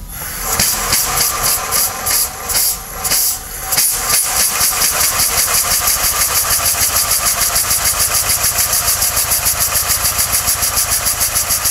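Homemade steam motorcycle engine running on 10 atmospheres of steam while warming up, with its warm-up cock open and venting. It starts with a hiss and uneven chuffs, then settles after about four seconds into a fast, even exhaust beat.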